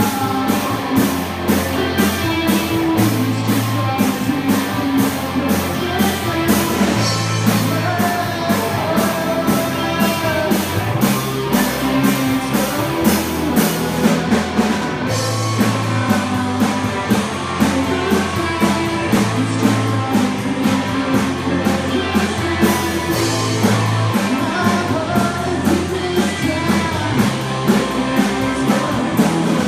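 Rock band playing live: drum kit keeping a steady beat with cymbals, bass guitar, and two electric guitars, with a man singing.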